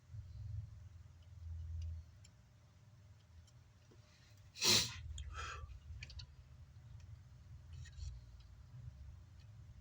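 Faint clicks and small handling noises of bench work over a low hum, with one short, loud hiss about halfway through.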